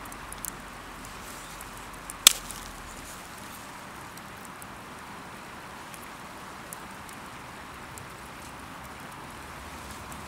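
A single sharp click or knock about two seconds in, with a few faint ticks over a steady background hiss.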